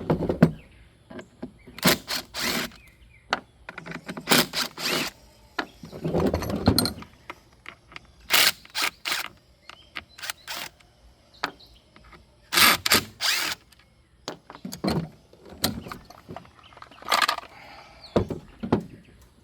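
Tools working on a Farmertec G466 Pro chainsaw's handle as it is unfastened and taken off: scattered clicks and knocks, with several short rattling bursts about half a second long.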